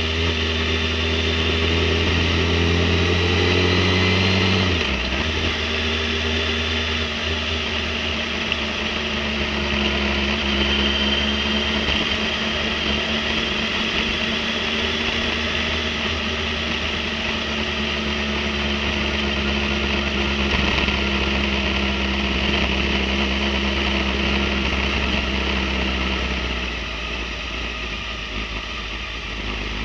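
Motorcycle engine running steadily at low revs, stepping down in pitch about five seconds in and getting a little quieter near the end.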